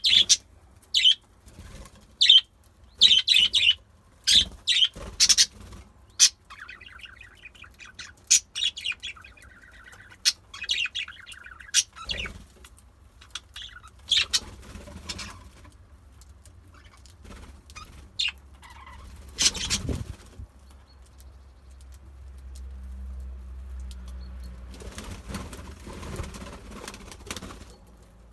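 Budgerigars chirping in short, sharp calls and bouts of fast warbling chatter, with a flutter of wings now and then; the calls thin out in the second half.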